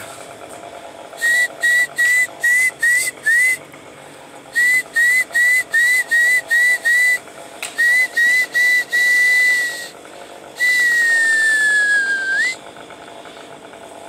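A person whistling: runs of short notes at one pitch, each flicking up at its end, about three a second, then one long note that slides slowly down and flicks up at the end.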